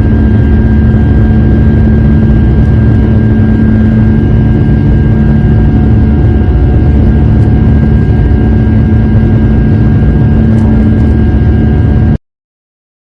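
Airbus airliner's jet engines heard from a window seat inside the cabin during takeoff: a loud, steady drone with a constant low hum and a thin high whine. It cuts off suddenly near the end.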